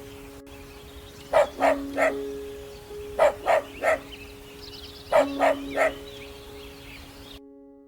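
A dog barking in three quick runs of three barks each, about two seconds apart.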